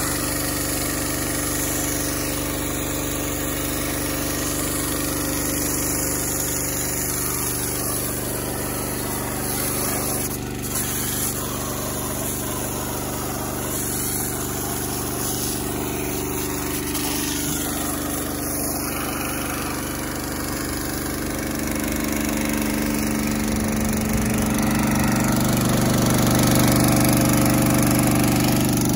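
Pressure washer's small gas engine running steadily, louder near the end, with the water jet hissing.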